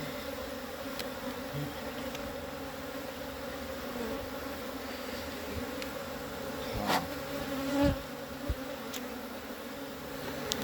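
A honeybee colony buzzing steadily as its hive stands open, with a few short knocks from about two thirds of the way through.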